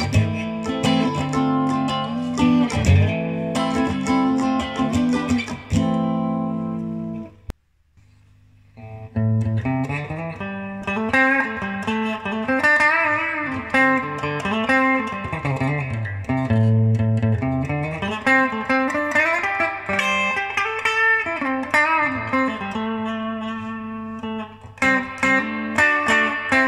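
Electric guitar music, playing notes with pitch bends. It breaks off about seven and a half seconds in, falls nearly silent for a second or so, then resumes.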